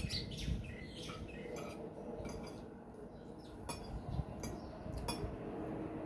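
Cutlery and dishes clinking during a meal: a scatter of light, sharp taps of spoons on plates.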